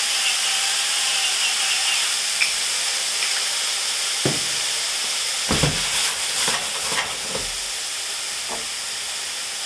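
Peas and onion sizzling steadily in a stainless steel saucepan, a constant frying hiss. A few light knocks and clatters come about halfway through.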